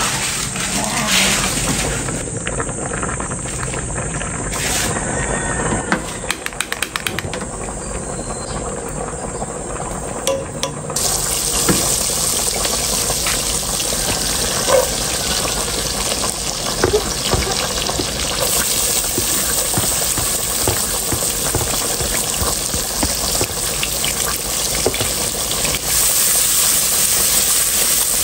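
Water bubbling in a pot of spaghetti, then about eleven seconds in a steady sizzle from a frying pan, with small ticks and pops as chopped onions go into the hot fat and are stirred.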